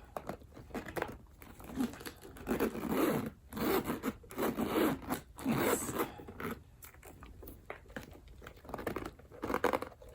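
Zipper on a caviar leather Chanel small vanity case being drawn along its track in a series of short pulls.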